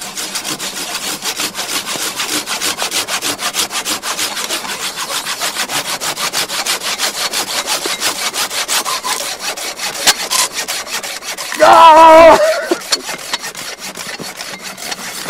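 Two Silky Bigboy folding pull saws cutting through dead wood side by side, fast back-and-forth strokes rasping without a break. About twelve seconds in, a man calls out loudly for about a second, and the sawing goes on more softly after that.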